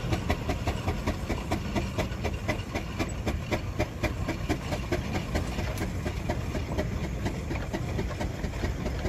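Steam engine running, with a low rumble and an even, rapid beat of about five chuffs a second.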